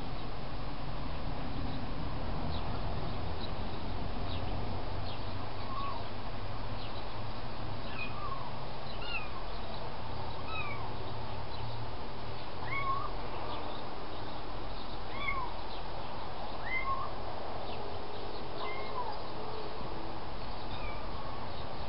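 Kitten mewing repeatedly: short, high mews every second or two, starting about five seconds in, over a steady low rumble.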